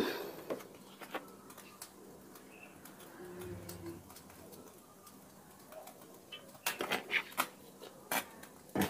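Cooking oil poured from a plastic bottle into an empty aluminium wok, the bottle glugging briefly about three and a half seconds in. A sharp knock at the very start and a few light clicks and knocks near the end.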